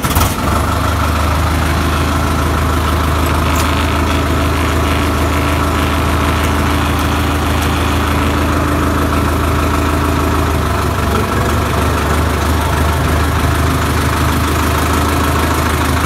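Sonalika tractor's diesel engine idling steadily, having just started.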